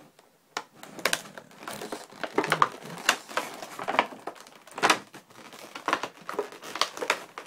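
Clear plastic blister tray from a boxed figure being handled, crinkling and clicking in irregular bursts.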